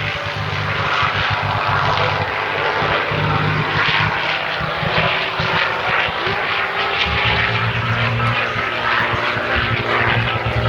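North American P-51D Mustang in flight, its Packard-built Merlin V12 engine and propeller running at a steady, loud level.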